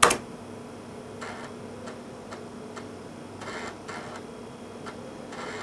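Apple IIc's built-in 5.25-inch floppy drive working on a disk: a click, then irregular soft clicks with a short run of quick clicks of the head stepping about three and a half seconds in, over a steady faint hum.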